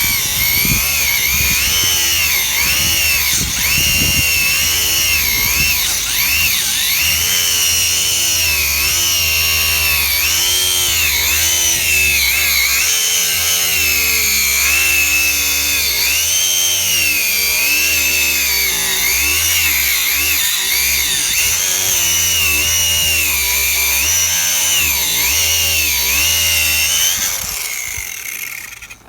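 WORX 20 V cordless angle grinder with a 100 mm metal-cutting disc cutting through a cardboard tube. A loud, high motor whine wavers up and down as the disc bites under load, then fades out near the end as the cut finishes.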